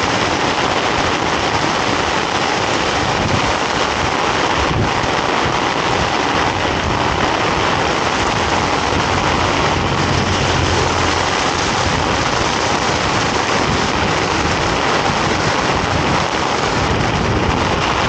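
Heavy rain pouring down in a steady, loud hiss that does not let up.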